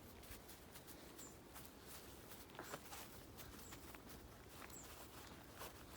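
Faint footsteps on an outdoor path, a light irregular patter of steps, with a few faint high chirps above them.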